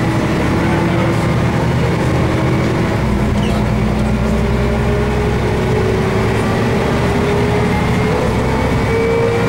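1988 MAN SL202 bus heard from inside the passenger cabin: its diesel engine and drivetrain running under way, with a tone that rises slowly and steadily in pitch as the bus gathers speed.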